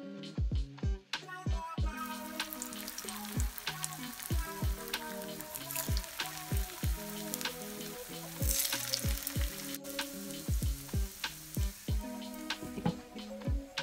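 Cheese patties frying in vegetable oil in a pan, the oil sizzling steadily; the sizzle starts about two seconds in and drops briefly near the end. Background music with a steady beat plays throughout.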